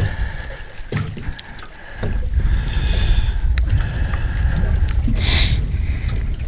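Wind on the microphone and water lapping against a small boat's hull: a steady low rumble that eases off briefly about a second in, with a few faint clicks and a short hiss about five seconds in.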